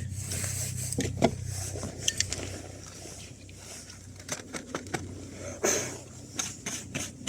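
Scattered light clicks and small knocks, loosely spaced, over a low steady hum.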